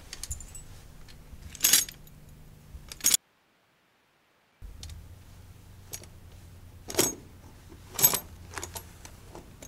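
Steel double long spring foothold trap clinking and clicking as its springs are pressed down and the jaws open, a handful of sharp separate metal clicks. The sound cuts out to dead silence for over a second about three seconds in.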